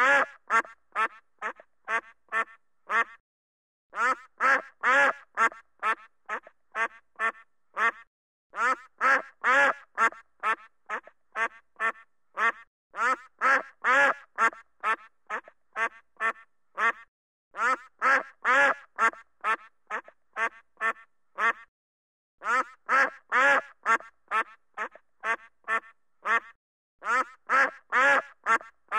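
Duck quacking in rapid runs of several quacks a second, each run loudest at its start and trailing off, with short pauses between runs.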